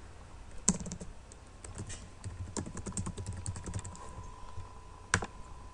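Typing on a computer keyboard: a quick run of keystrokes for about three seconds, followed near the end by a single louder click.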